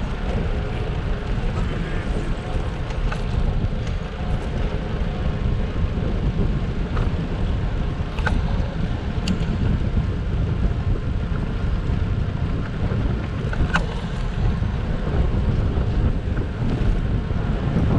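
Wind buffeting the microphone of a camera riding on a moving bicycle: a steady low rumble, with a few short clicks.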